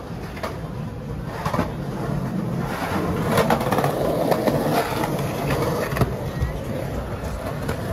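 City street traffic passing, a rushing noise that swells through the middle, with scattered clicks and knocks.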